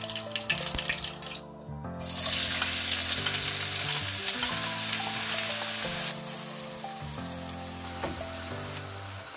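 Food sizzling in hot ghee in a pan. The sizzle starts suddenly about two seconds in, after a few light crackles, and drops to a quieter sizzle at about six seconds. Melodic background music plays throughout.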